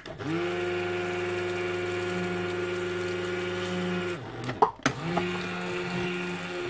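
Mistral Slender Blender stick blender mixing cold-process soap batter: it spins up, runs steadily, stops about four seconds in with two sharp knocks, then starts again and runs on. The blending brings the batter toward trace.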